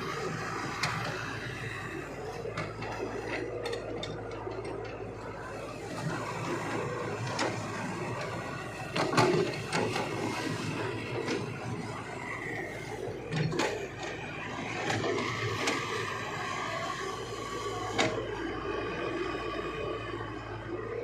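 Excavator working: a steady low engine hum with noisy scraping over it and a few sharp clanks, the loudest about nine seconds in.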